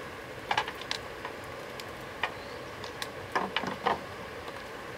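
A few sharp clicks and knocks of hard objects being handled, a pair about half a second in, one a little after two seconds, and a quick cluster of several near the end, over a steady background hiss.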